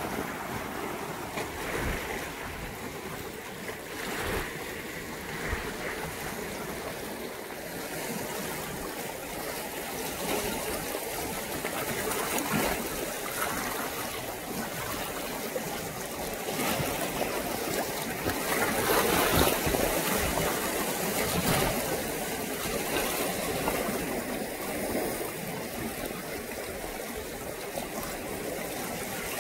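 Sea water washing and sloshing over shoreline rocks, a steady rush of moving water that grows somewhat louder a little past the middle.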